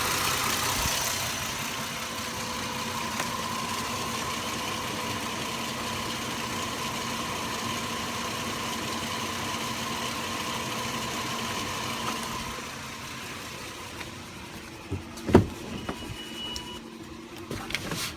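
Car engine idling steadily, dropping quieter after about twelve seconds, then a few sharp knocks near the end.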